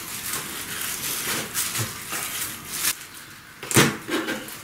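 Kitchen knife slicing green peppers on a cutting board: a few sharp knocks of the blade striking the board, the loudest a little before the end, over a steady hiss.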